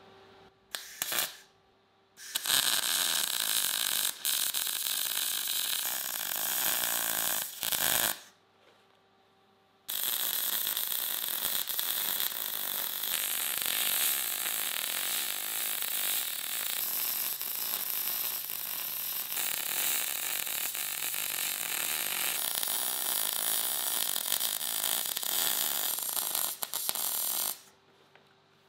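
Wire-feed (MIG) welding arc crackling and hissing as steel is welded. Two short tacks about a second in, then a run of about six seconds, a pause, and a long continuous bead of about seventeen seconds that stops near the end.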